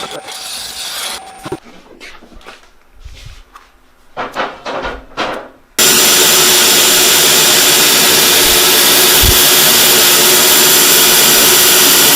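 Wood being turned on a lathe, a tool cutting into the spinning log. First come a few separate scraping cuts, then a little before halfway a sudden jump to loud, steady cutting noise that runs on evenly.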